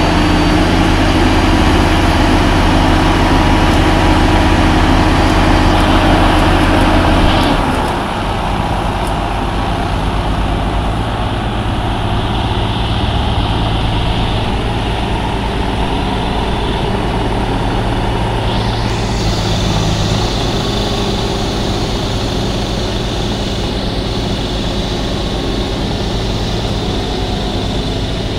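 Plasser & Theurer Unimat Compact track-tamping machine's diesel engine running with a steady low hum. About seven seconds in, the deep engine tone drops off sharply and a weaker, steady machine hum carries on.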